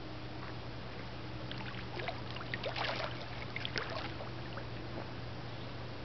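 Small splashes and water sloshing at the surface, bunched between about two and four seconds in, over a steady low hum and hiss.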